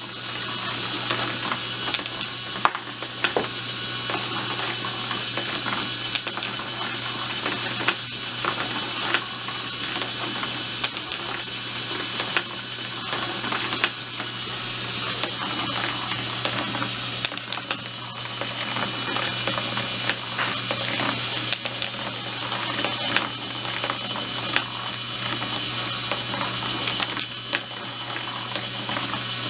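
Motorized marble run running: a steady motor hum under irregular clicking and rattling of marbles on the track.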